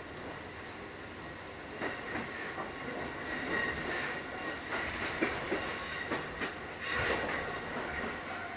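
Running sound heard inside a Takamatsu-Kotohira Electric Railroad 1080 series (ex-Keikyu 1000) train car. A steady rumble grows louder about two seconds in, with repeated sharp knocks of the wheels and a thin high-pitched squeal.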